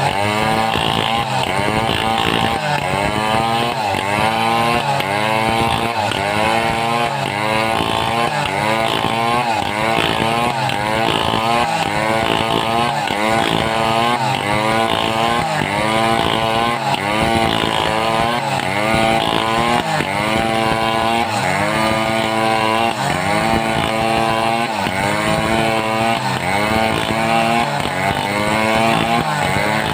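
Home-built two-stroke chainsaw running under load while cutting timber, its engine pitch dipping and recovering about once a second.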